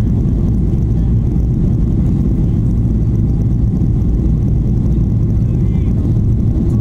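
Steady low rumble of cabin noise inside a Boeing 737-800 on final approach with the flaps extended: its CFM56 jet engines and the airflow over the airframe, heard through the cabin wall.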